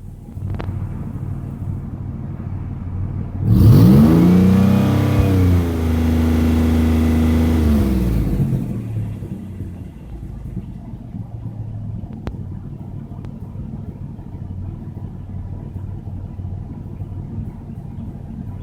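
Regal car engine with a misfire, idling, then revved once about three and a half seconds in, held up for around four seconds and let fall back to idle.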